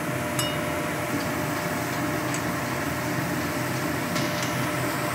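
Shredded potato deep-frying in oil in a steel kadai, a steady sizzle, with a couple of light clicks as the slotted spoon touches the pan.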